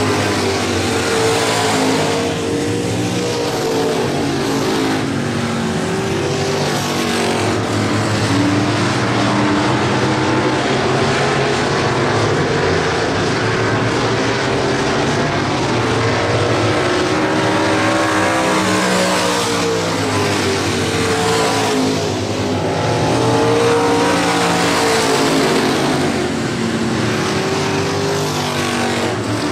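Several street stock race cars' engines running together around the track. Their pitch rises and falls again and again as the cars speed up, slow and pass.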